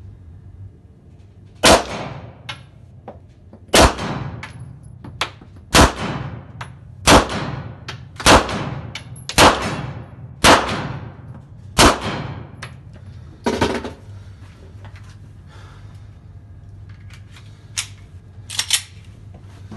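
Pistol fired in an indoor shooting range: about nine sharp shots roughly one to two seconds apart, each ringing off the range, the last one weaker. Near the end come a few metallic clicks as the pistol is handled at the bench.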